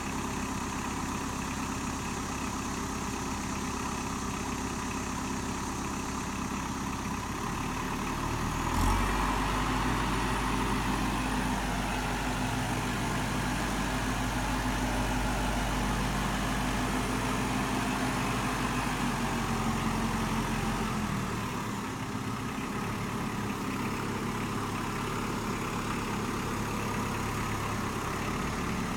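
Kubota M59 tractor-loader-backhoe's diesel engine running steadily, revving up about eight seconds in, with a short clank just after, holding at higher revs, then easing back toward idle about 21 seconds in.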